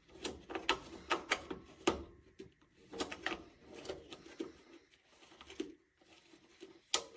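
Irregular small plastic clicks and scrapes as the battery cap is screwed back onto a propane heater's battery-powered igniter, with a sharper click near the end.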